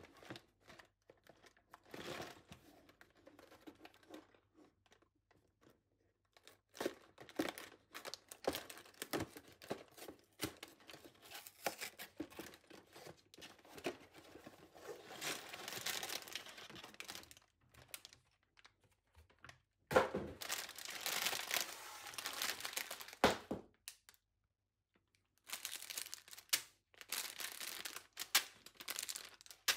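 Hands opening a cardboard toy box, with the flaps scraping and tearing open, then clear plastic bags of LEGO pieces crinkling as they are handled. The rustling comes in fits and starts with short pauses.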